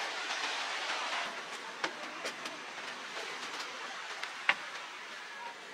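Footsteps and knocks on a wooden hut's timber frame and floor, a few sharp knocks with the loudest about four and a half seconds in, over a steady rushing background noise.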